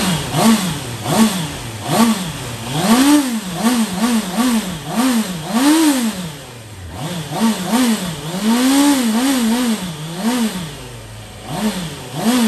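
Honda CBR650R's inline-four engine being blipped in neutral, the revs rising and dropping back in quick repeated throttle blips, one or two a second, with a few higher, longer revs.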